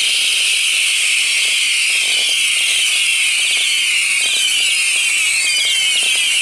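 Four silver comet cakes firing together: a loud, steady sizzling hiss with many pitches sliding downward, over faint repeated thumps of the shots.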